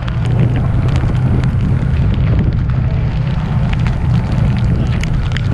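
Strong wind buffeting the microphone in a thunderstorm squall at sea, a steady loud low rumble, with many scattered sharp ticks of raindrops striking.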